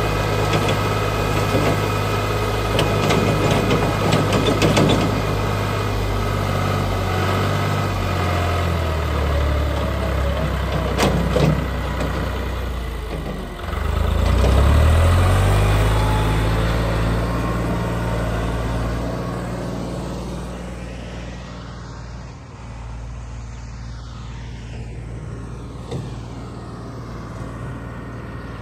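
Tractor's diesel engine running, with a few knocks early on; about fourteen seconds in its speed drops and then climbs again, and after that it eases off and grows quieter.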